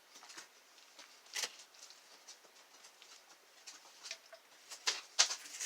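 Scattered small clicks and taps from a padlock being handled, growing louder and closer together near the end.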